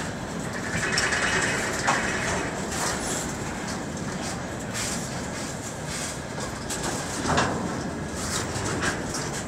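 Freight train wagons, tank cars and then covered wagons, rolling past: a steady rumble of steel wheels on the rails with clicks and clanks, the sharpest about two seconds in and a louder one about seven and a half seconds in.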